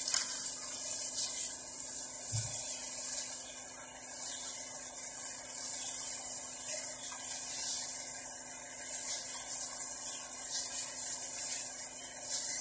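Plastic-gloved hands rubbing and turning split round scad in vinegar marinade in an aluminium foil tray: continuous rustling and scraping, with one dull bump about two and a half seconds in.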